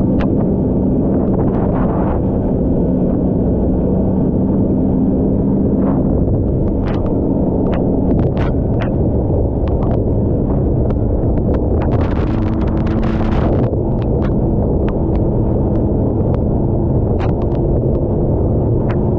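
Snowmobile engine running steadily at trail speed, its drone stepping up in pitch partway through, under heavy low wind rumble on the microphone. Scattered sharp ticks and a short burst of hiss about twelve seconds in.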